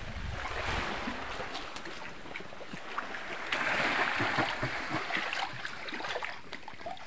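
Shallow sea water lapping and washing against rocks, with small splashes; a louder wash swells up about three and a half seconds in and fades over a second or so.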